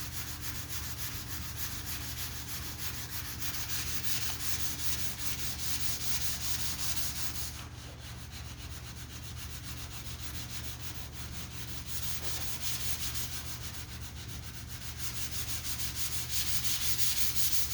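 Sanding block rubbed back and forth over primed body filler on a metal panel, blocking the lacquer primer smooth so the repair is feathered in. A steady scratchy rasp with a slight swell on each stroke, and a brief lull about halfway through.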